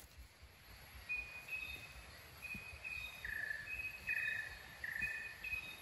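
A bird singing in the forest: a run of short, even whistled notes at two pitches, higher and lower, alternating, starting about a second in.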